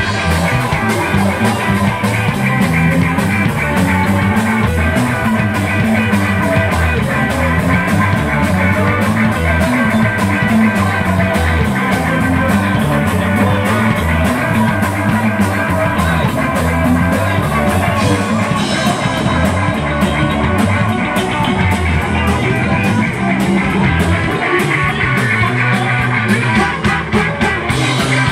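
Live rock band playing: electric guitar, electric bass and drum kit, loud and steady throughout.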